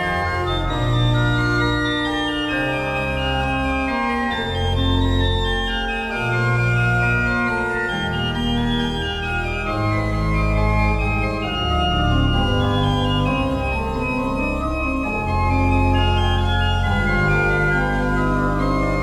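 Background organ music: sustained chords over a low bass line that moves to a new note every second or two.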